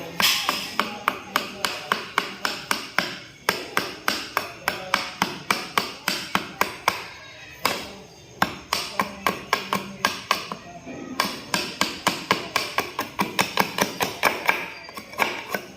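Rapid, even knocks, about four to five a second, in runs broken by short pauses, with music underneath.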